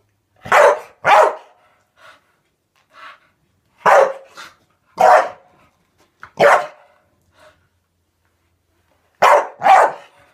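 Staffordshire bull terrier barking at soap bubbles it is chasing and snapping at: seven sharp barks, two early, two around four to five seconds in, one at about six and a half seconds and two near the end, with a few softer short sounds between them.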